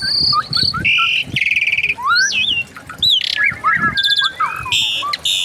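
Several bird species calling over one another in a mixed chorus: high held whistles, quick up- and down-sweeping notes, and buzzy, rapidly pulsed trills, one after another with hardly a gap.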